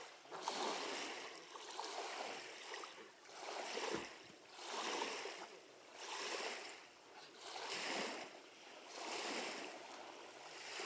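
Small lake waves lapping against the shore, the wash rising and falling in a regular rhythm about every one to two seconds.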